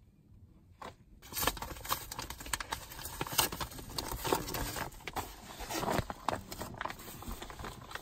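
Paper mailing envelope being torn open and crinkled, a dense crackling run that starts about a second and a half in.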